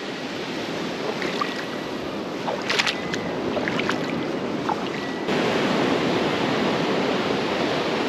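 Sea surf and shallow water washing over a rocky shore, with a few brief splashes about three seconds in as bare feet wade through the pool. The wash grows louder and fuller about five seconds in.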